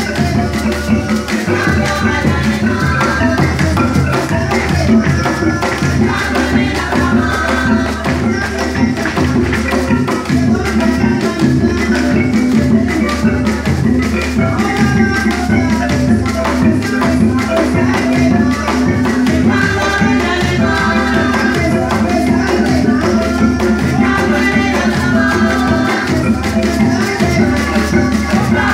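Live Latin American folk ensemble playing: hand drums keeping a fast, steady beat under a continuous maraca-like shaking, with a melody running over them.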